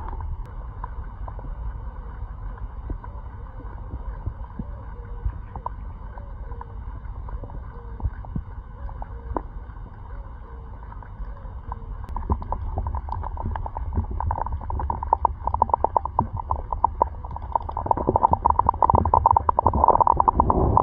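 Fish feeding at the surface of a lake on thrown bread: many quick plops, slurps and small splashes over low rumbling wind and water. The splashing grows busier and louder about halfway through and is densest near the end.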